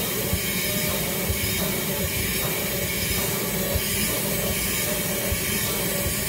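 Vacuum cleaner running steadily while its hose nozzle is worked over the bedding on a mattress.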